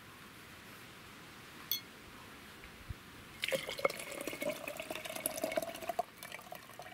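Water poured from a glass jar of tomatoes into an empty glass litre jar, starting about halfway through. The stream splashes into the jar with a tone that rises slightly as the jar fills.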